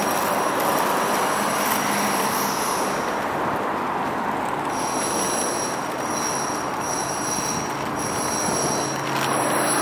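A train running on the tracks below over a steady rush of traffic, with a thin high squeal that comes in about halfway and breaks off and returns every second or so.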